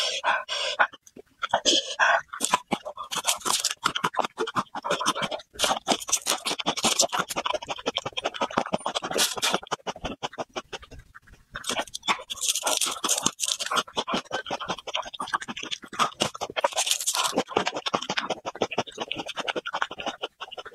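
Close-up mouth sounds of a person eating raw garlic cloves: wet chewing and crunching with dense crackly clicks, mixed with hard breaths. There is a short lull about ten seconds in.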